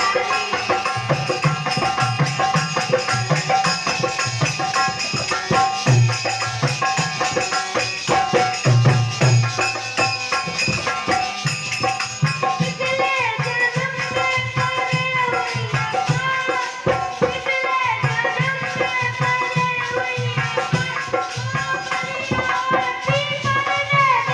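Music with a steady drum beat and a shaker rattle under a melody that slides between notes.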